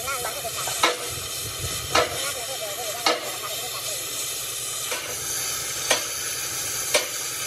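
Six sharp knocks, roughly a second apart, over a steady loud hiss, typical of hammering on steel during heavy-machinery repair.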